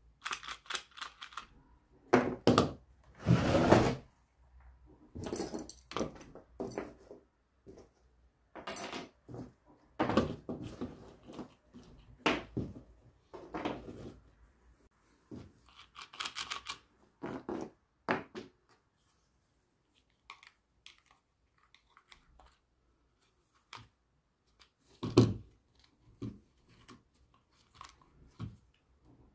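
Plastic recoil starter of a brush cutter handled on a wooden workbench: irregular clicks, knocks and scrapes, including a longer scrape about three seconds in and a single loud knock near the end.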